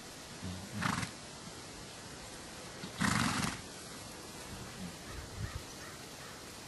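A horse calls twice, short and breathy: once about a second in and again at three seconds, the second louder and longer.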